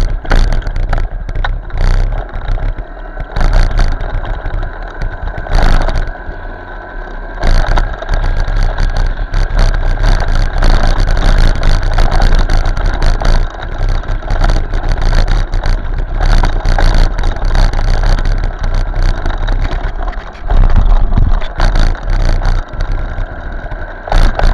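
Motorcycle riding in traffic: engine running under a constant roar of road and wind noise, with wind buffeting the microphone and a steady low rumble.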